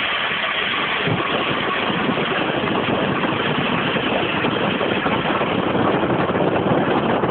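Steady road noise of cars driving at speed: an even, rough hiss with engine rumble underneath, getting a little louder near the end.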